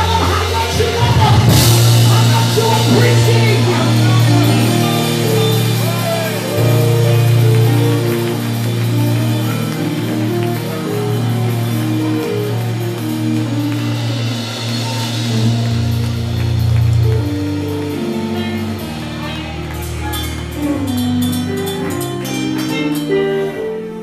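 Live gospel praise band playing, with electric guitar, low sustained bass notes and drums. There is a cymbal crash about a second and a half in, and a singer's voice near the start.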